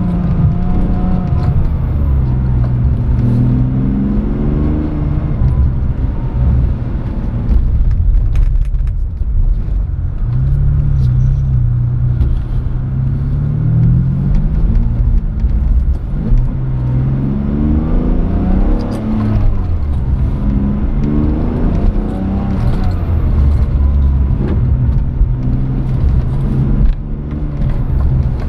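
Car engine heard from inside the cabin, revving up and easing off again and again as the car accelerates and slows through the turns of a track layout, its pitch climbing and dropping several times.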